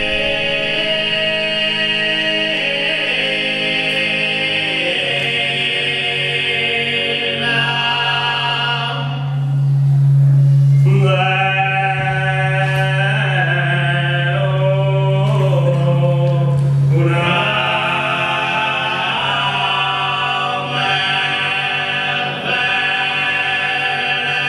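Sardinian cuntzertu: four male voices (bassu, contra, mesu boghe and lead boghe) singing a cappella in close harmony over a steady low drone. About ten seconds in, the upper voices drop out briefly while the low drone swells, then the full chord returns.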